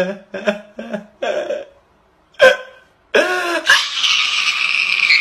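A man crying loudly: a run of short sobbing gasps, then one sharp cry, then a long, high wail from about three seconds in.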